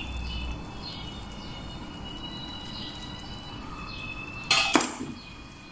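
Tomato broth being poured from a jug into a pot of stuffed cabbage rolls, a steady pour of liquid, with one sudden sharp knock about four and a half seconds in, the loudest sound.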